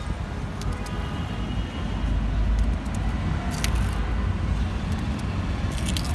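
Steady low rumble of street traffic, with a few faint clicks.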